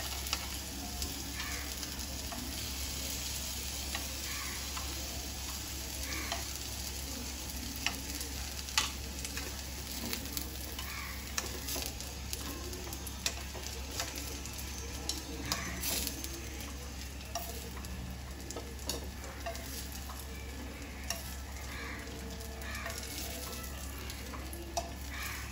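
Stuffed spiny gourd (kantoli) halves shallow-frying in oil in a non-stick pan give a steady sizzle. Scattered sharp clicks come from steel tongs tapping the pan as the pieces are lifted out.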